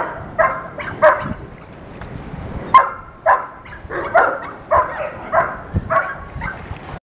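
A dog barking repeatedly in short, sharp barks, about two a second, with a pause of about a second and a half after the first few.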